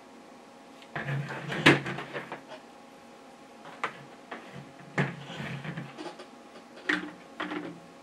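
Handling sounds of a smartphone with a plug-in headphone dongle and adapter cable: a series of clicks and knocks on a hard tabletop. The loudest, about a second and a half in, fits the phone being set down, with a few lighter knocks and rustles after it.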